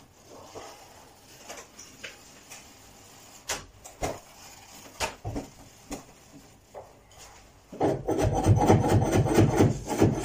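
Carpet-fitting hand work at a wardrobe edge: scattered light knocks and taps, then from near the end a loud, fast run of rubbing, rasping strokes, several a second, against carpet and wood.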